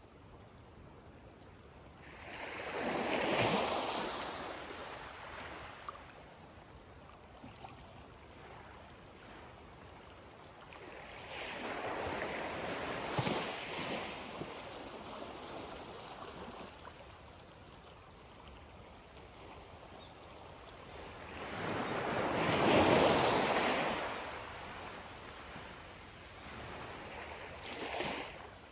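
Small waves lapping up a sandy beach in a calm bay. Each wash swells and fades over a few seconds, three times about ten seconds apart, with a smaller one near the end.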